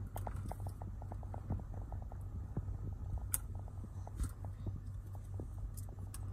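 Small plastic clicks and taps as a phone vent mount is handled and pushed onto a car's air-vent slats, over a steady low hum.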